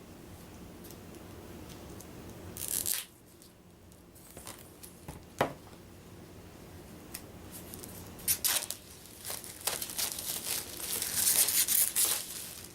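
Packaging torn and crinkled as a folded cardboard game board is opened up: scattered rustles and tears, with a sharp click about halfway and a busy run of tearing and crinkling near the end.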